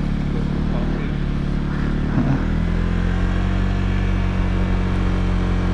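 Motorcycle engine running steadily as the bike is ridden, with wind and road noise over the microphone; the engine note shifts slightly about two seconds in.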